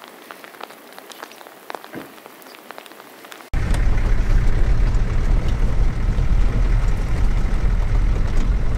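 Light patter of raindrops and drips on wet ground. A little over three seconds in, a sudden cut brings in the loud, steady rumble of a small van's engine and road noise, heard from inside the cabin.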